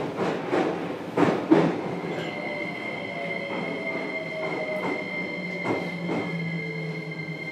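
JR Kyushu 303 series electric train heard inside its motor car: wheels knocking over rail joints, the knocks coming further apart later on. About two seconds in, a steady high whine sets in, with fainter motor tones slowly falling in pitch as the train slows.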